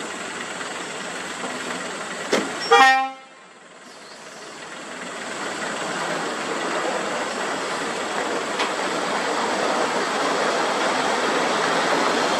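A vehicle horn sounds one short, loud blast about three seconds in, over the rumble of heavy truck traffic. After the horn the rumble drops away, then builds steadily as a MAN TGS tractor unit pulling a loaded lowbed trailer draws nearer.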